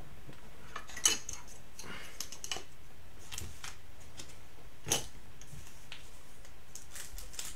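Baseball cards and hard plastic card holders being handled on a table: light rustling and small clicks, with two sharper plastic clicks about a second in and about five seconds in.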